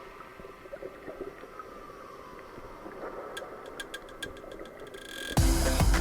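Muffled underwater sound of a camera submerged in the sea: a low watery hiss with faint gurgles and a brief run of light clicks around the middle. Background music comes in loudly near the end.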